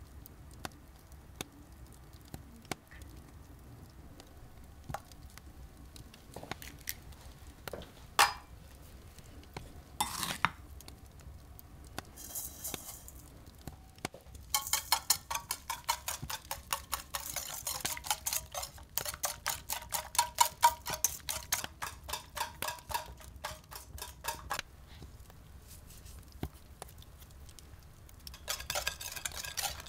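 A utensil stirring and beating in a bowl. It clinks against the side in a fast, even run of strokes, several a second, starting about halfway in and again near the end, after some scattered knocks and clicks.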